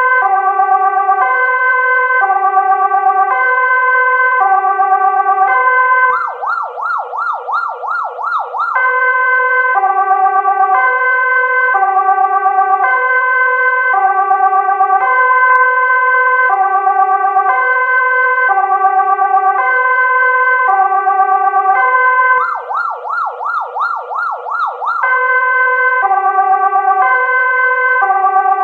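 Ambulance's electronic siren sounding a two-tone hi-lo pattern, switching twice to a rapid warble for a couple of seconds before returning to the two-tone.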